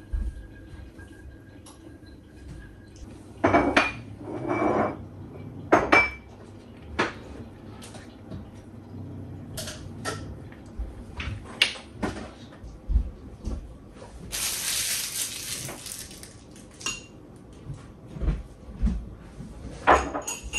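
Kitchen clatter: pots, dishes and metal cutlery knocking and clinking in a run of separate sharp knocks, with a short hissing rush about two-thirds of the way through.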